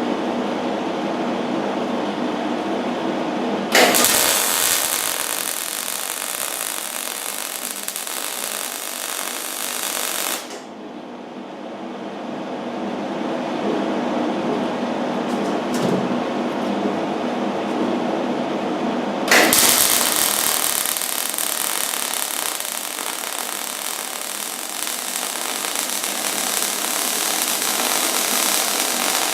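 Millermatic 90 wire-feed welder arc crackling and hissing in two long runs. The first strikes sharply about four seconds in and stops about ten seconds in; the second strikes about nineteen seconds in. A steady drone runs underneath.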